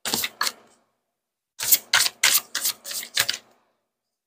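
A deck of oracle cards being shuffled by hand: two papery slaps at the start, then a quick run of about six more, roughly three a second.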